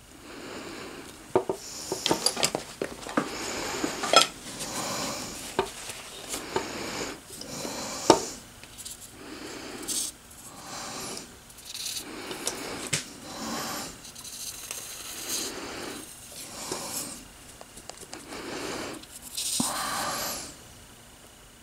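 Small metal parts of a manual knurling tool being handled and fitted together by hand: irregular rubbing and scraping with sharp light clinks, the sharpest one about eight seconds in.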